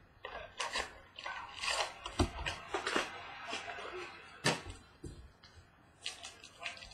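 A trading-card mini box being opened and its cards and wrapper handled: irregular crinkles, taps and scrapes of cardboard and foil wrapping, the sharpest about two, three and four and a half seconds in.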